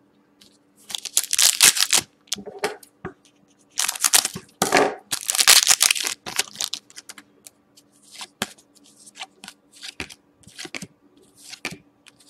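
A foil trading-card pack wrapper being torn open in several loud rips and crinkles during the first half, followed by shorter, quieter rustles and clicks as the cards are slid out and handled.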